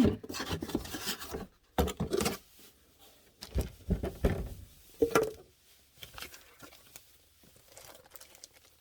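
Laptop packaging being opened by hand: rustling, crinkling and tearing of wrapping in irregular bursts, loudest in the first five seconds, then fainter handling.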